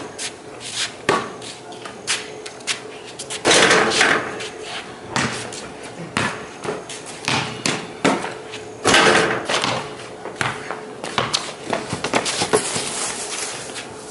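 Basketball bouncing on concrete and banging off a small wall-mounted backboard and rim: a string of sharp thuds and knocks, with louder, ringing crashes about four and nine seconds in.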